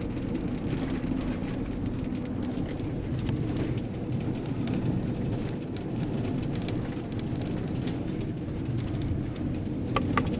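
Steady road and engine noise of a Winnebago View motorhome driving, a low rumble with a faint steady hum. Two short sharp clicks come near the end.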